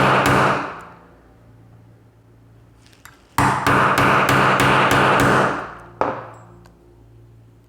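A hammer rapidly striking a steel punch held against a padlock's rivet on a bench block, trying to drive the rivet out. The ringing metal blows come in two quick runs, one ending about a second in and another from about three and a half to five and a half seconds in, with a single blow near six seconds.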